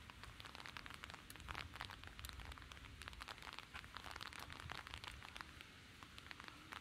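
Light rain falling, heard as many small, irregular raindrop ticks over a soft hiss.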